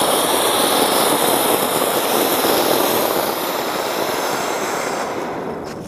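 A colour kothi ground firework fountain spraying sparks with a loud, steady hiss that dies down near the end.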